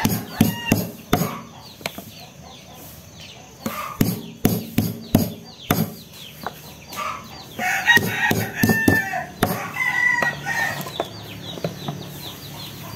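Lemongrass stalks being smashed, a run of sharp, irregular knocks. A rooster crows twice in the background, about eight and ten seconds in.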